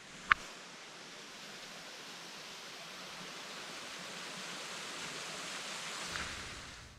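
Steady rush of falling water from a waterfall, building slowly. A single sharp click comes about a third of a second in.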